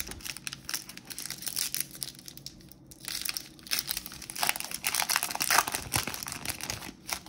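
Baseball card pack wrapper being torn open and crinkled in the hands, with the loudest crackling between about four and a half and six and a half seconds in.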